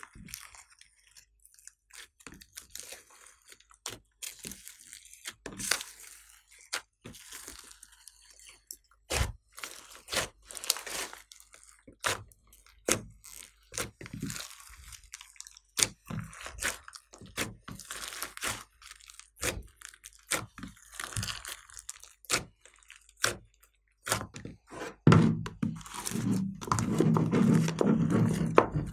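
Hands squishing and kneading glossy slime packed with foam beads: irregular wet squelches with crackling, crunching pops. For the last few seconds a louder, continuous rough sound with a low hum takes over as the glass tray is tipped to turn the slime out.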